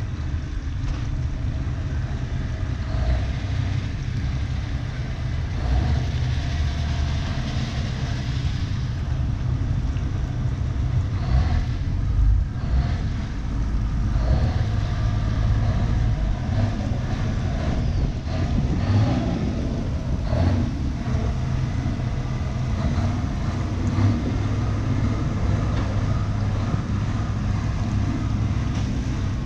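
Outboard motor of a Quicksilver 555 motorboat running steadily at low harbour speed, a constant low drone.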